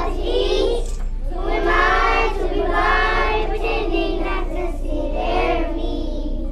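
A group of preschool children singing a song together in unison, unaccompanied, in long phrases with a short breath about a second in.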